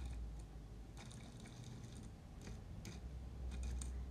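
Electric motor of an old model train locomotive humming under power while the loco barely moves, straining against gears clogged with hair; the hum swells near the start and again about three seconds in, with a few light clicks of fingers on the plastic shell.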